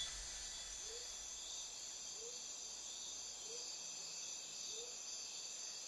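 Insects chirring steadily, with a short low call repeating evenly about every second and a quarter.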